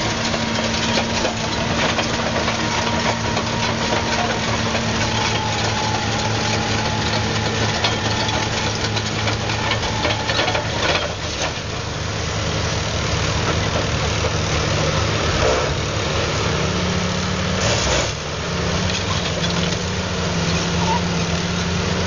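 Large Caterpillar crawler bulldozer's diesel engine running steadily as the machine climbs a rocky slope, with many small knocks and rattles from its steel tracks on the rock. The engine note rises slightly about two-thirds of the way through.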